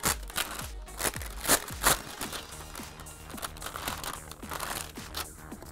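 Clear plastic sleeve crinkling as a graphics card is slid out of it, a few sharp crinkles in the first two seconds, over soft background music with a steady beat.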